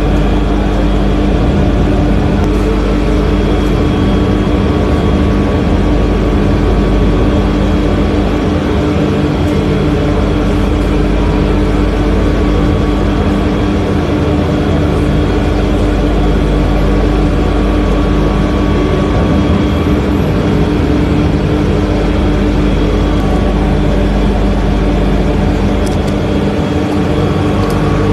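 Steady, loud mechanical drone of kitchen machinery, a constant hum with a few held tones and no breaks.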